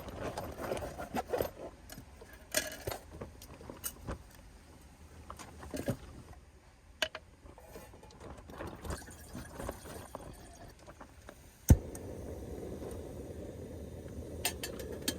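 Scattered light clicks and knocks of gear being handled. About two-thirds of the way through comes one sharp knock, and a steady rushing noise follows it.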